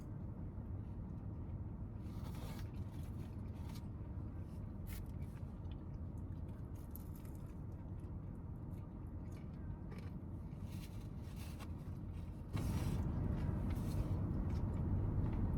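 Steady low hum of a parked car's cabin, with faint scattered clicks and rustles of food and packaging being handled. The hum gets louder about twelve seconds in.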